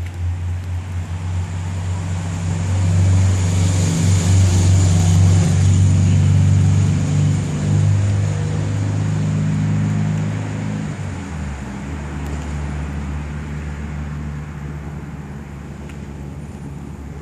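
A motor vehicle's engine running nearby, swelling to its loudest a few seconds in, dropping in pitch about eleven seconds in and then fading, with a faint hiss above it.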